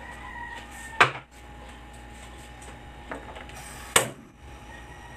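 A few sharp clacks of kitchen things or the phone being handled: a loud one about a second in, a small one near three seconds and another loud one near four seconds, over a faint steady whine.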